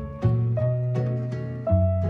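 Background music: a light instrumental of short, quickly decaying notes over a low bass line that changes about every second and a half.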